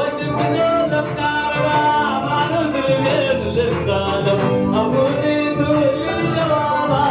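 Live dance music: a man singing into a microphone over instrumental accompaniment with a steady beat.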